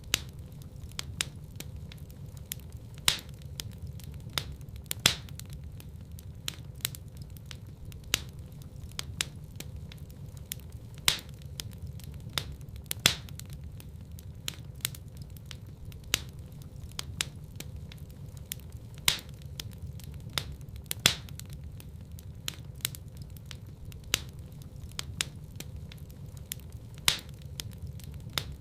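Wood fire crackling in a fireplace: irregular sharp pops and snaps, a few louder than the rest, over a steady low rumble of the burning fire.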